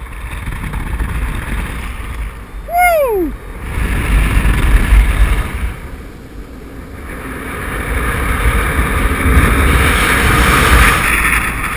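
Wind rushing over the microphone of a camera carried on a paraglider in flight, rising and falling in strength and loudest near the end. About three seconds in, a brief whistle-like tone falls quickly in pitch.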